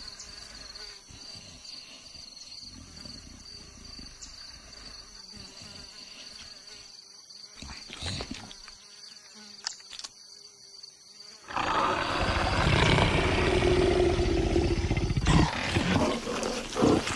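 An animal roaring, loud and rough, starting suddenly about eleven seconds in and lasting around five seconds, after a faint steady buzz.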